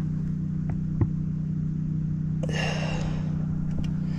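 Steady low hum with several even tones, with a small click about a second in and a brief rustle of handling around two and a half seconds in.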